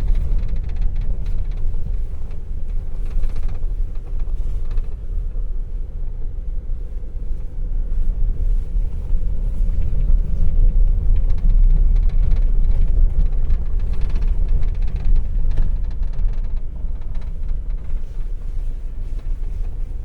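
Mahindra Scorpio on the move: a steady low rumble with faint scattered rattles, the noise that is put down to the handbrake.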